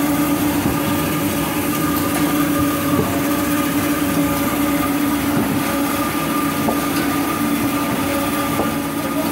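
Jumbo-roll toilet paper machinery running steadily: a constant mechanical drone with a fixed pitch, over an even clattering noise.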